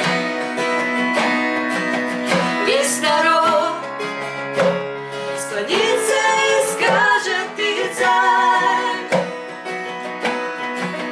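Worship song in Russian: an acoustic guitar strummed under women's singing, with vibrato on the held notes.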